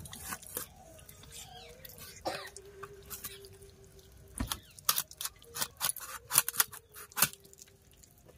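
A boti blade cutting through a river fish's tough skin and bone: a run of sharp cracks and scrapes, a few in the first half and then a quick, loud series from about four and a half seconds in.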